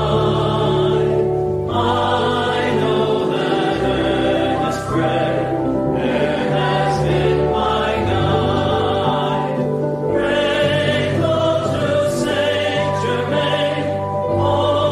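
Choral music: voices singing long held phrases with vibrato over low sustained notes, with short breaks between phrases.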